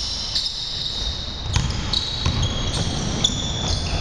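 Basketball sneakers squeaking again and again on a hardwood gym floor as players cut and stop, with a few low thuds on the court from the ball and players' feet.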